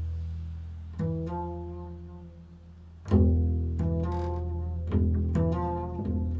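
Double bass plucked pizzicato in a slow, free improvisation. A note rings and fades, another is plucked about a second in, and a deeper, louder note about three seconds in. Quicker plucked notes follow near the end.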